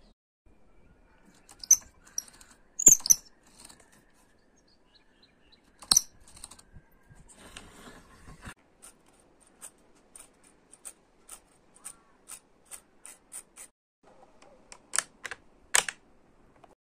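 Sharp plastic clicks and taps from a 3D-printed RC car being handled. The clicks come irregularly, with a run of lighter clicks about twice a second in the middle and two louder ones near the end.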